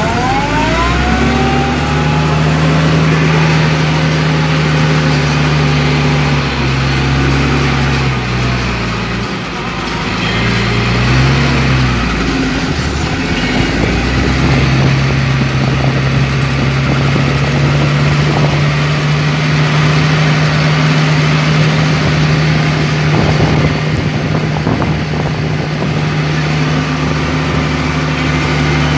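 Tractor engine running steadily under load, with a short rising whine in the first couple of seconds. Its speed drops and wavers about ten seconds in, then settles back to a steady run.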